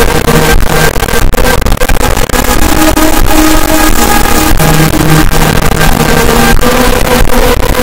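Extremely loud, heavily distorted and clipped music: held tones buried in harsh noise, with sharp hits throughout, as in an 'ear rape' edit.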